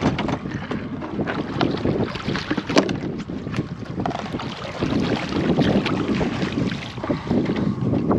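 Wind buffeting the microphone with a steady low rumble, and scattered sharp clicks and knocks from the fishing rod and line being handled as the line is pulled in by hand.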